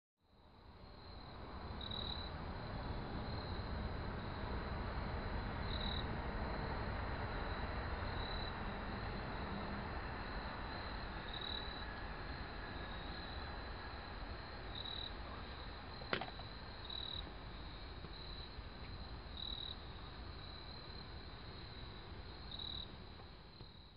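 Faint night-time insect chorus of crickets: a steady high-pitched chirring that pulses brighter every couple of seconds, over a low outdoor rumble. One sharp click about two-thirds of the way through.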